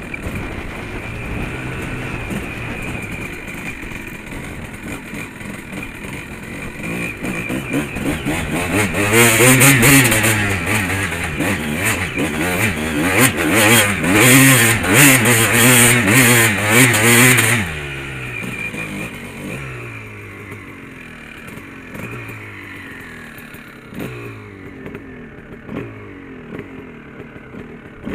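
Honda dirt bike engine revving as it rides up a grassy hillside, its pitch rising and falling with the throttle. Through the middle it is held at high revs under load, loudest, with wind rushing over the helmet microphone. It then eases back to a lower, quieter run with short blips of throttle.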